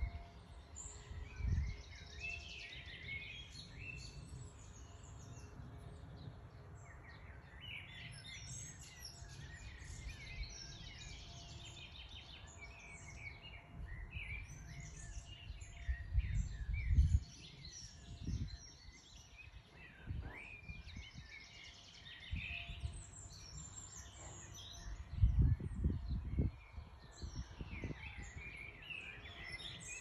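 Songbirds chirping and singing, several voices overlapping in quick high twitters. A few low rumbles come through: one about a second and a half in, a louder one around the middle, and another a few seconds before the end.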